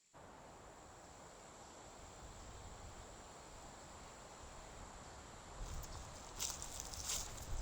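Forest ambience with a steady high-pitched insect drone, like crickets. From about six seconds in, footsteps crunch through leaf litter, a few steps growing louder.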